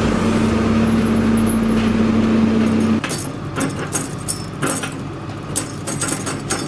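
Timberjack 460 skidder's diesel engine running steadily under load. About three seconds in, the engine sound cuts off abruptly and gives way to irregular metallic clanking and rattling.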